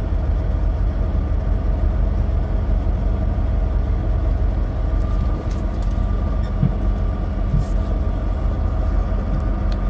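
Semi truck's diesel engine running steadily at low speed, heard from inside the cab as a constant low rumble with a faint steady whine above it.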